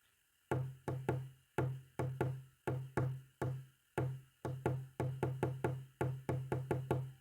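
Morse code sounded as a run of about twenty sharp clicks, each with a brief low ring, in an uneven pattern of short and longer gaps. The clicks start about half a second in and come faster in the second half.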